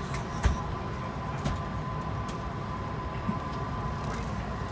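Steady low rumble of an Airbus A220-300's cabin with a thin steady hum over it, and a few light knocks, the loudest about half a second in, as a hand handles the seat's leather headrest.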